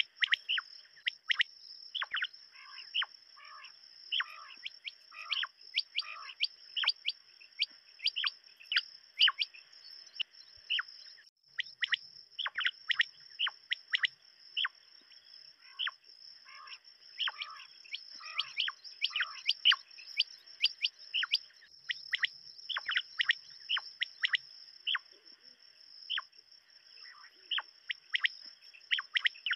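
Quail calling: a dense, irregular run of short, sharp notes that drop in pitch, several overlapping. A steady high-pitched whine runs underneath and breaks off for a moment about eleven seconds in.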